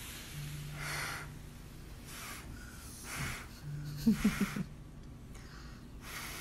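A child blowing on a hot spoonful of food: a series of short puffs of breath about a second apart. About four seconds in, a quick run of four short low sounds stands out as the loudest moment.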